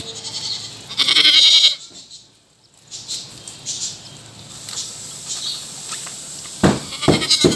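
Young male goat bleating once, a loud wavering call about a second in, lasting under a second. Light rustling follows, and near the end come several heavy knocks.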